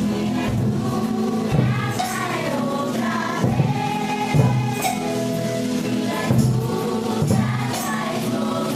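Music: a group of voices singing together, with occasional percussion hits.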